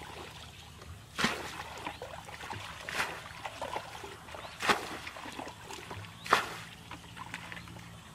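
Water being bailed out of a shallow muddy pool with a plastic bucket: a splash each time a bucketful is thrown out, four times, about every second and a half.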